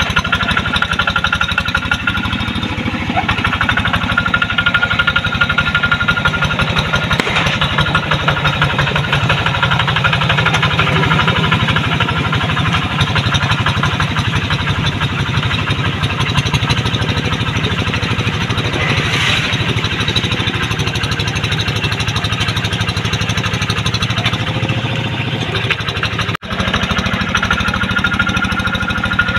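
Two-wheel hand tractor's single-cylinder diesel engine running steadily under load as it pulls a moldboard plough through paddy mud. The sound drops out for an instant near the end.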